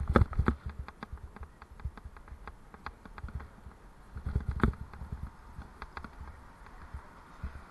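Raleigh Mustang Elite adventure bike and its mounted camera knocking and rattling over bumpy paving, with a low rumble underneath. There is a hard jolt at the start and another about four and a half seconds in.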